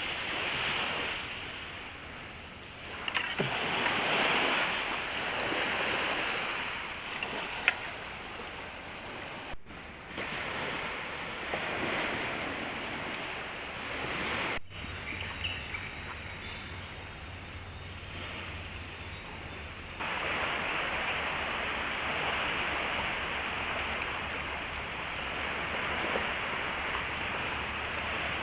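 Small waves washing onto a sandy beach, rising and falling in swells, with a few sharp clicks; the sound changes abruptly twice and ends as a steady wash.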